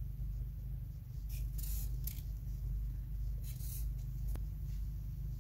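Sharpie marker tip drawn along masking tape around a gasket's edge: a few short scratchy strokes and a light click, over a steady low hum.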